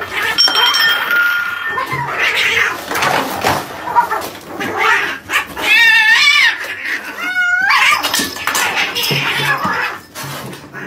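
Two cats fighting: loud yowling and screeching, with wavering, warbling yowls about six and seven and a half seconds in, over scuffling noise.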